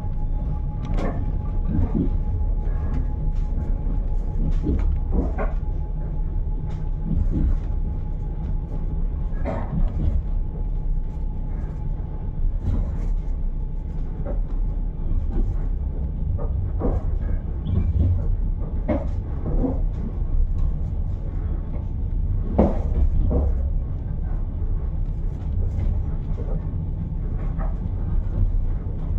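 Passenger train running, heard from on board: a steady low rumble with scattered clicks and knocks.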